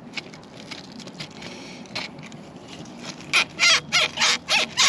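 A few light clicks of hose-clamp pliers on the hose clamp. About three seconds in comes a rapid run of loud rubbery squeaks, about three a second, as the old breather hose is worked back and forth on the rusty steel fuel filler tube.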